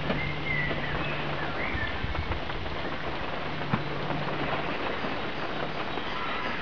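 Steady outdoor background hiss with a low hum that stops about two-thirds of the way through. A few faint bird chirps come in the first couple of seconds, and there is a single sharp click just past halfway.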